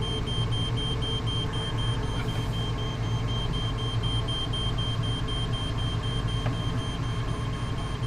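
An electronic alarm beeping at a high pitch in rapid, evenly spaced pulses without letup, over a steady low hum.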